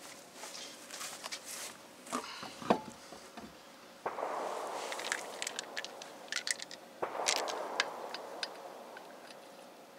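Knocks and clunks of a steel-belted tyre and alloy wheel being hung on a Jeep Cherokee's rear hub, the loudest a sharp knock early on, then light metallic clicks of lug nuts being threaded onto the studs by hand. Two sudden rushing noises, each fading over a couple of seconds, come partway through.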